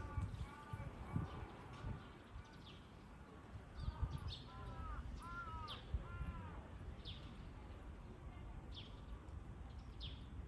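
Birds calling: two runs of harsh, repeated caw-like calls, one at the start and one about four seconds in, and short, sharp, high chirps that fall in pitch, every second or two through the second half.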